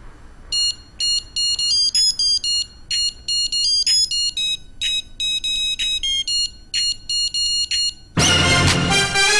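A quick tune of short, high electronic beeps, several notes a second with brief pauses, in the manner of a ringtone. About eight seconds in, loud music starts.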